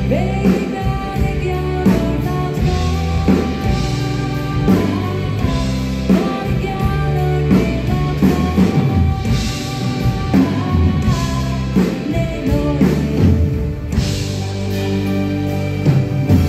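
Live pop band playing steadily with drum kit, bass and guitar, a woman singing over it.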